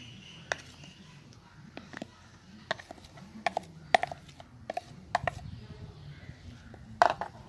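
Metal spoon scraping and tapping against a bowl while scooping flour out of it: a scatter of light clinks and knocks, the sharpest about four seconds in and again about seven seconds in.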